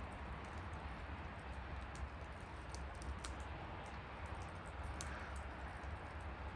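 Bonfire crackling: a steady hiss with frequent small sharp pops, the loudest about five seconds in, over a low steady rumble.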